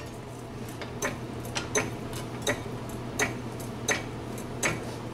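Hydraulic low-profile floor jack being pumped up under the rear lower control arm: a sharp click with each stroke of the handle, about every 0.7 s, over a steady low hum.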